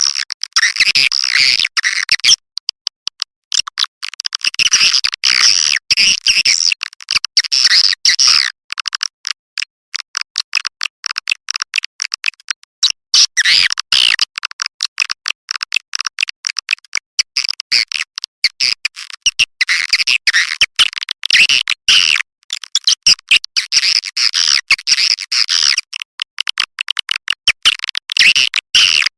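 Recorded white-nest swiftlet calls of the kind played as a lure to draw swiftlets into a nesting house: bouts of fast, high twittering chirps alternating with rapid trains of dry clicks. The sound is thin, with everything below the higher range filtered out.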